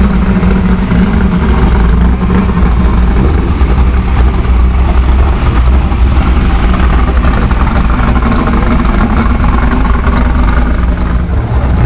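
Off-road race truck engines running steadily at low speed as the trucks roll slowly past, a loud low rumble.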